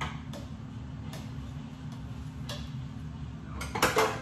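Kitchen utensils clinking against dishes: a few light, separate taps, then a louder clatter near the end, over a steady low hum.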